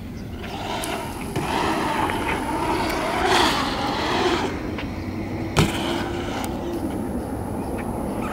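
BMX bike tyres rolling over a concrete skatepark bowl. The rolling swells as the rider picks up speed down the transition and fades a little after. There is one sharp knock about five and a half seconds in.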